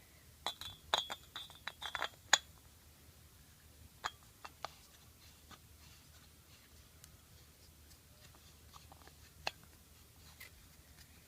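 BR30 incandescent floodlight bulb being screwed into a lamp socket: a quick run of glass-and-metal clinks and scrapes over the first couple of seconds, the loudest about two and a half seconds in, then a few scattered clicks.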